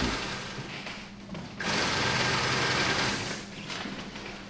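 Industrial sewing machine stitching heavy sailcloth. It runs in one steady burst of just under two seconds, starting about a second and a half in, then stops.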